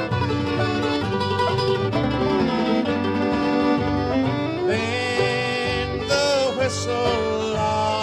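Bluegrass band playing an instrumental passage between sung verses: banjo and guitar over a plucked bass, with a sliding fiddle line about halfway through.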